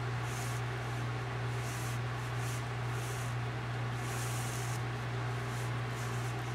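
Steady low hum over a constant background hiss, broken every second or so by short, soft bursts of higher hiss.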